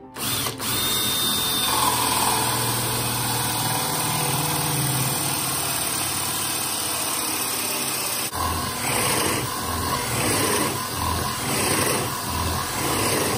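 A Ryobi 18V cordless drill boring into the end grain of a timber block with a long 200 mm wood bit. It runs steadily for about eight seconds, then turns uneven, surging and easing as the bit bores deeper.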